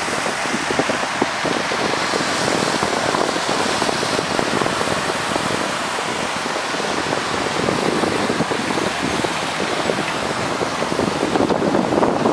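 Wind rushing over the camera microphone in an open aerial cable-car gondola, a steady dense rush that swells slightly near the end.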